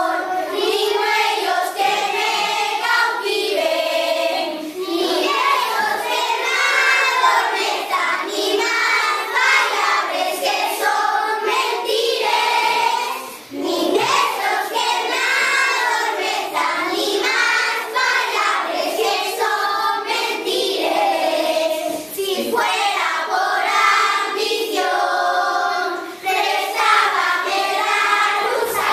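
A class of young children singing an Asturian song together in unison, with a brief break between phrases about halfway through.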